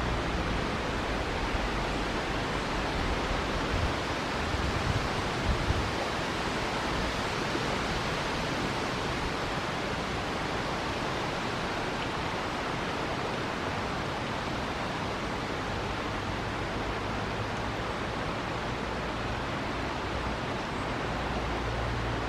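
River water rushing steadily: an even hiss of flowing water, with a few soft low bumps about four to six seconds in.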